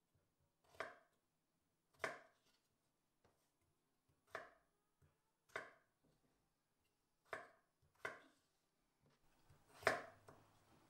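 Large kitchen knife chopping peeled raw potatoes into chunks on a bamboo cutting board: about seven separate knocks of the blade hitting the board, unhurried and a second or two apart, the last one the loudest.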